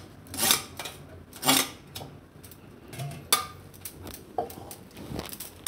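A steel spoon scraping boiled spinach out of a stainless steel mesh strainer and clinking against a steel mixer-grinder jar: a handful of short scrapes and knocks.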